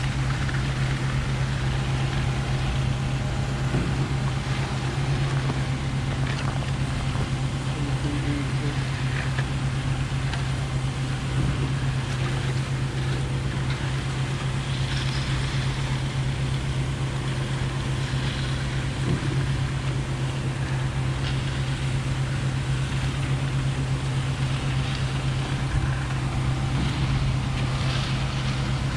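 Diesel engine of a concrete pump truck running steadily at a constant speed, a low even hum.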